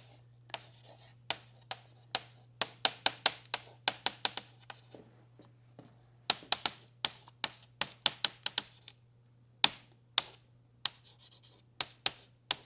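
Chalk writing on a chalkboard: quick runs of sharp taps and short scratches as letters are formed, with brief pauses between words. A steady low hum runs underneath.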